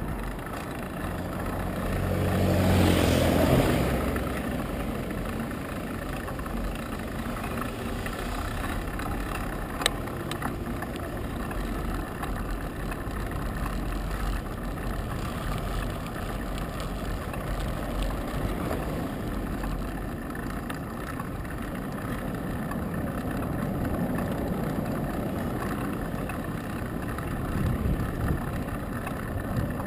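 A car passes, its engine and tyre noise swelling and fading away about two to four seconds in, followed by a steady rush of wind and tyre noise from the moving bicycle. A single sharp click about ten seconds in.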